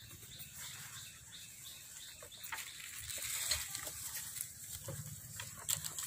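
Scattered short, faint animal calls and clicks over a steady high hiss.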